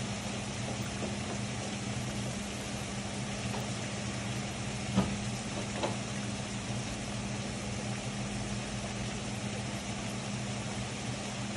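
Heavy rain falling in a steady hiss, with a steady low motor hum underneath and two sharp taps about five and six seconds in.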